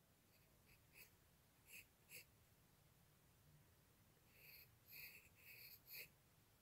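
Faint scratching of a graphite pencil drawing on paper: a few short strokes in the first couple of seconds, then a run of longer strokes from about four seconds in.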